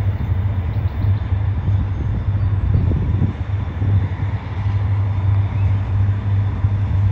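Steady low rumble of an approaching diesel locomotive leading a sand train.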